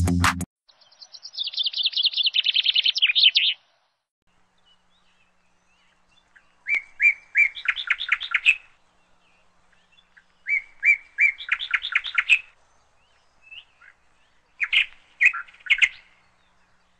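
Small bird singing: first a fast high trill, then three repeated song phrases about four seconds apart, each starting with a few separate notes and running into a quick string of notes, with near silence in between.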